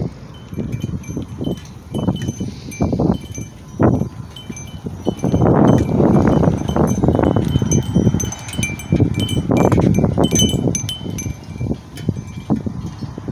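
Metal wind chimes ringing, with scattered high notes throughout. Underneath, louder irregular low rumbling gusts of wind on the microphone, strongest from about five to eight seconds in and again around ten seconds.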